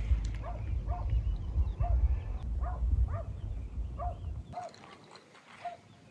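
An animal giving about ten short calls, each rising and falling in pitch, spaced irregularly half a second to a second apart. Underneath is a low rumble on the microphone that stops about four and a half seconds in.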